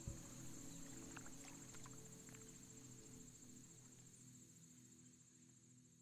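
Faint, steady high insect trill, like crickets, over soft sustained low music tones, all fading away toward the end.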